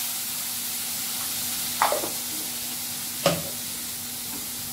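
Chopped onion sizzling steadily in hot oil in a pan as it is stirred, with two sharp clanks of the spatula against the pan, about two seconds in and again a second and a half later.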